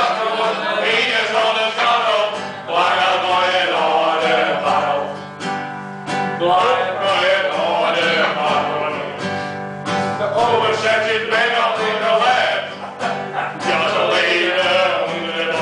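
Acoustic guitar played live, with men singing along to it.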